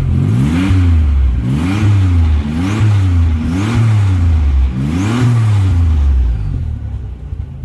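Nissan 300ZX Turbo's 3.0-litre turbocharged V6 revved about five times in quick succession, each rev rising and falling, then settling back to idle near the end. It runs through a new MSA cat-back exhaust with the catalytic converter still fitted.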